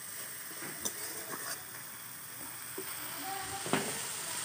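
Spice masala of ground spices and ginger-garlic paste, loosened with a little water, sizzling in a steel kadai while a long-handled steel spatula stirs and scrapes it. A few short scraping clicks sound over the steady sizzle, the loudest near the end.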